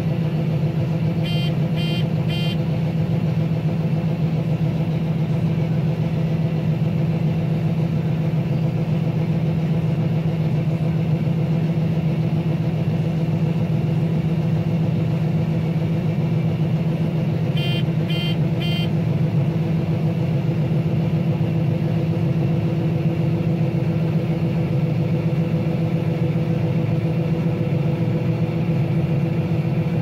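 Combine harvester engine and unloading auger running at a steady drone while wheat is unloaded, heard from inside the cab. Three quick beeps sound twice over it, about a second in and again some 16 s later.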